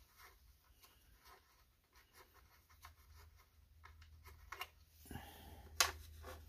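Faint, scattered small clicks and light scraping of metal parts being handled, as a socket on a cordless driver is worked into a tight spot on a small engine. A sharper click comes about six seconds in.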